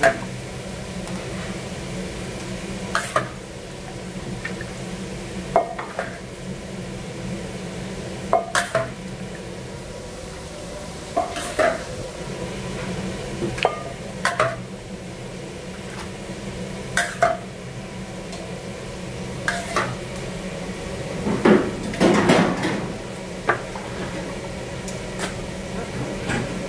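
Utensils knocking and scraping against a large stainless steel cooking kettle as raw chicken pieces are stirred and the bloody liquid that came out of the meat is scooped off. A sharp knock comes every two to three seconds, with a longer stretch of scraping about three-quarters of the way through, over a steady low hum.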